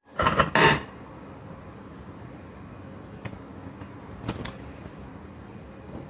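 A brief loud rustle in the first second, then a faint steady room hum with two sharp clicks of a metal fork against a ceramic plate, about three and four seconds in.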